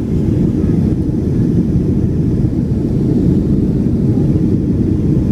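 Jet airliner cabin noise during the climb after takeoff: a Boeing 737's engines and the rushing airflow, heard from a window seat as a loud, steady low drone.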